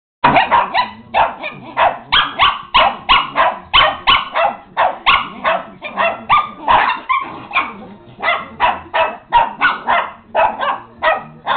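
A small Maltese dog barking in a rapid, unbroken string of high-pitched yaps, about two to three a second. It is upset, barking at the other dog.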